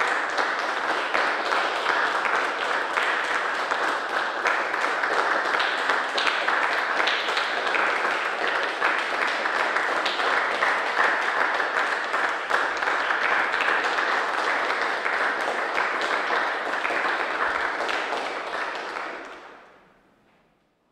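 Small audience applauding steadily, fading away near the end.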